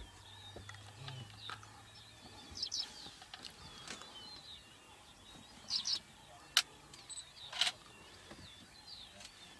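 Dawn chorus of several birds singing and calling, with small high trills throughout and a quick, high double note repeated every three seconds or so. Two sharp clicks come a little past halfway.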